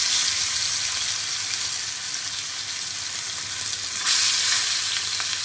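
Spice-marinated surmai (kingfish) slices sizzling in shallow hot oil on an iron tawa as they are laid in one by one. The sizzle is a steady hiss that swells louder at the start and again about four seconds in, as another slice goes into the oil.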